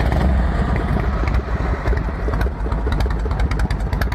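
1987 Harley-Davidson Softail Custom's 80-cubic-inch Evolution V-twin, breathing through a Mikuni carburetor and Hooker long-shot dual exhaust, catches right at the start and settles into a steady idle with the loping Harley beat.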